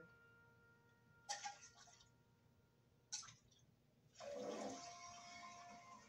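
Faint rushing, water-like sound that starts about four seconds in and carries on, after two short soft noises; otherwise near silence with a faint hum.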